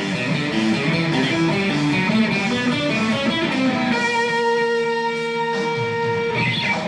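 Squier Classic Vibe '50s Stratocaster electric guitar playing a quick run of notes, then a held note that rings for about two seconds before it is cut off near the end.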